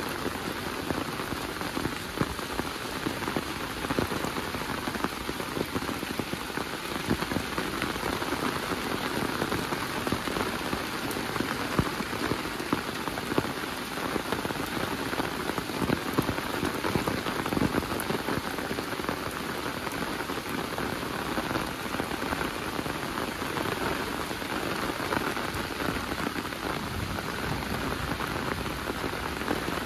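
Steady rain falling, an even hiss dotted with many sharp ticks of close drops striking surfaces.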